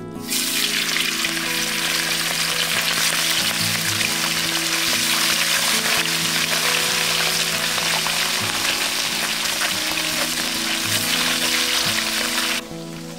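Small whole river fish frying in hot oil in a wok, a loud, steady sizzle. It starts suddenly about a third of a second in and cuts off suddenly near the end.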